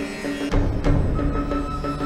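Background music score: a repeating low note pattern with a deep drum hit about half a second in, and a high held note entering just after a second.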